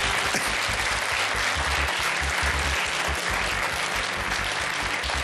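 Studio audience applauding steadily for a correct answer.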